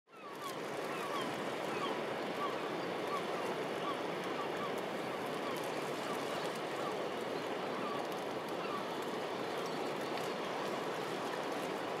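Steady wash of small waves lapping among rocks. A run of faint, short, falling bird calls repeats about twice a second through the first half.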